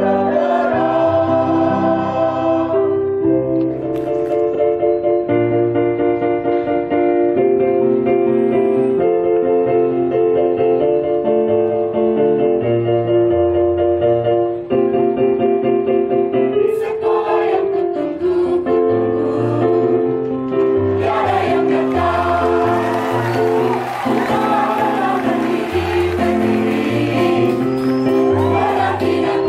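Mixed choir of men and women singing a medley in parts, with held notes moving step by step over a low line. The sound grows fuller and brighter about two-thirds of the way through.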